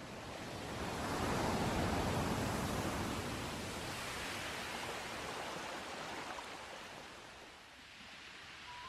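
Surf sound: a rushing wash of waves that swells over the first two seconds and then slowly fades.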